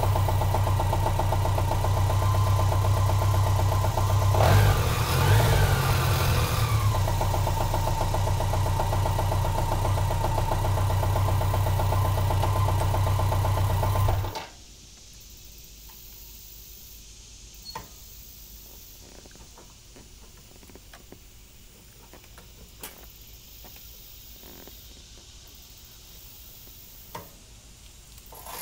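Large touring motorcycle engine idling steadily, briefly revved up and back down a few seconds in, then switched off about halfway through, leaving quiet with a few faint clicks.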